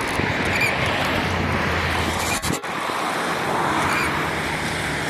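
Steady rushing wind noise with a low hum underneath, broken by a brief dropout about two and a half seconds in.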